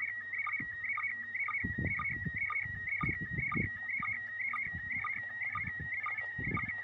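Slow-scan television (SSTV) signal in PD120 mode: a warbling tone near 2 kHz, broken about twice a second by a short lower sync beep, each beep marking the start of a new pair of image lines. From about a second and a half in, irregular low crackling noise comes in over it.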